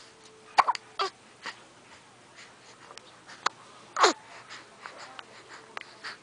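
A series of short, sharp sneezing and choking sounds. The loudest come about half a second in and about four seconds in, where one ends in a falling whine.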